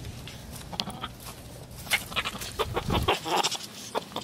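Hens clucking: a scatter of short, irregular calls from the flock.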